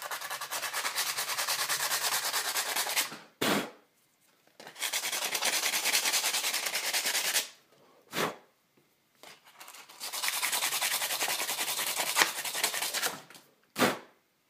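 A 120-grit silicon carbide sandpaper disc rubbed quickly back and forth on the metal end of a Ni-Cd battery cell, roughing up the terminal for soldering. It comes in three bouts of fast scratching a few seconds each, with a sharp knock after each bout.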